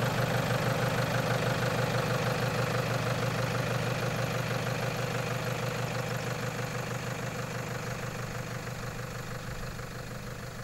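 4x4 vehicle's engine idling steadily, slowly growing fainter.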